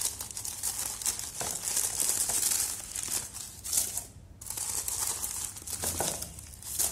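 Tissue-paper stuffing crinkling and rustling as it is pulled out of new sandals by hand, in several bursts with a short break about four seconds in.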